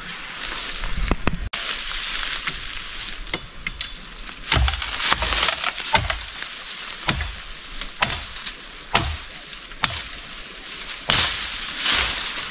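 A bamboo culm being chopped through by hand, a sharp woody strike roughly once a second.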